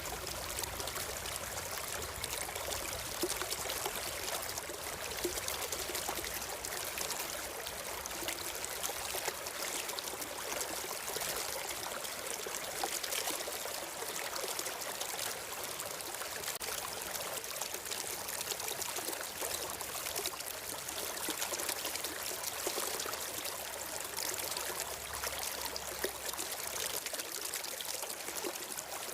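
A stream flowing steadily, an even splashing of running water.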